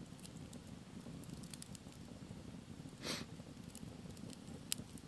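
Wood campfire crackling faintly, with scattered sharp pops over a low steady rush, and one short breathy hiss about three seconds in.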